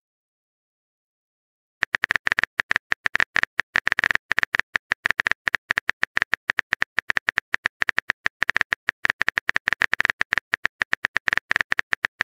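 A quick, uneven run of short sharp clicks, several a second, starting about two seconds in after total silence: a clicking sound effect.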